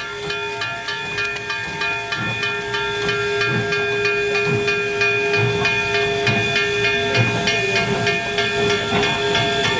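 Steam hissing from a standing 2-8-0 steam locomotive, with several steady held tones and a fast, even ticking underneath. It grows a little louder over the first few seconds.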